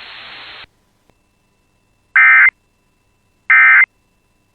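Emergency Alert System end-of-message SAME data bursts: two short, identical, buzzy digital bursts about 1.4 seconds apart, the code that closes an alert. Before them a steady radio hiss cuts off under a second in.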